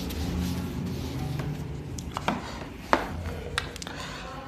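Whiteboard eraser rubbing back and forth across the board in quick strokes, then a few sharp clicks and taps near the end as a marker is handled.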